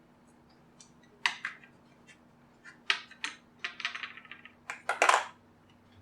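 Small hand tools clicking and clattering against the hard parts of a JBL Flip 2 speaker being taken apart: a few separate sharp clicks, a quick run of small ticks, then a louder clatter near the end.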